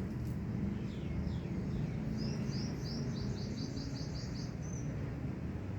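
A bird calling: three short notes sliding downward, then a quick run of about ten repeated high notes ending in one longer, higher note, over a steady low rumble.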